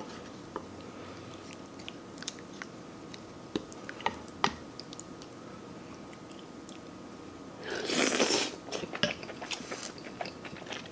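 Close-miked eating: small wet mouth clicks and chewing of a spoonful of creamy soup with mushrooms taken from a wooden spoon, with one louder rush of noise, under a second long, about eight seconds in.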